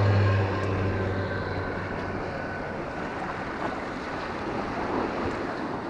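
Sea waves washing against the rocky shore, with wind on the microphone. A low steady hum is heard at the start and fades away within the first second or two.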